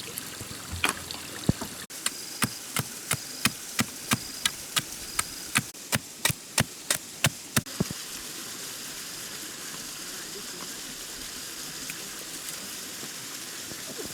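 A rapid series of sharp knocks, about three a second, each with a brief high ring, stopping after some seven seconds, over the steady sound of running water.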